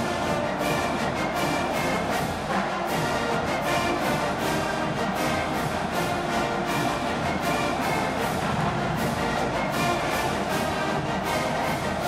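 Marching band playing: brass over a steady drum beat.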